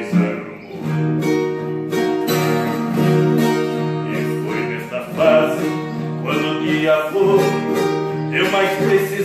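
Instrumental introduction of a Brazilian moda caipira, played on a viola caipira and two acoustic guitars plucked and strummed together.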